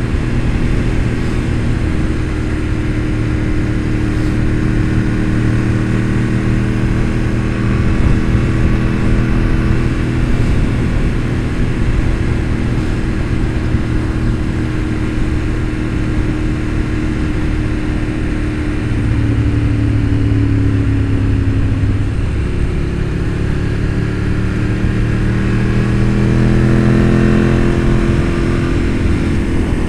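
Motorcycle engine running under way, heard from the bike. About two-thirds of the way through, the engine note sags, then climbs again.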